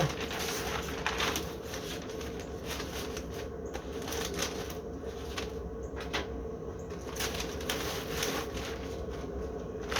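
Butcher paper being handled: irregular rustling and light taps over a steady faint hum.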